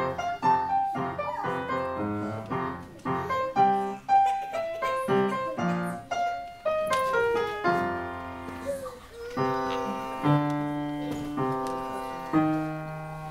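Upright piano played solo: a quick run of notes for the first half, then slower, held chords.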